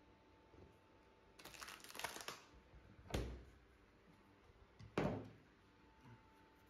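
A crackling scrape, then two sharp knocks about two seconds apart: a claw hammer prying and knocking at a melamine mould to break a cured epoxy-and-wood board free.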